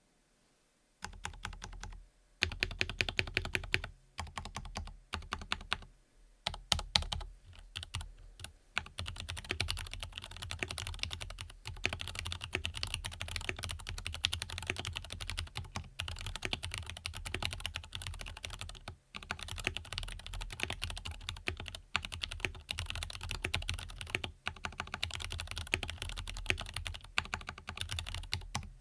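Typing on an Angry Miao Cyberboard mechanical keyboard fitted with Krytox-lubed tactile Zealios switches and lubed Everglide V2 stabilizers. Fast, dense keystroke clacks start about a second in, with brief pauses between runs.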